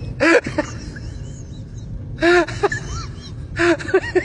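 French bulldog giving short, arching whines, one just after the start and a few more from about two seconds in.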